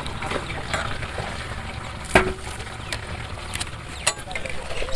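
Metal ladles and spatulas knocking and scraping against large cooking pots of boiling rice: scattered clicks, with one sharp, ringing clank about two seconds in.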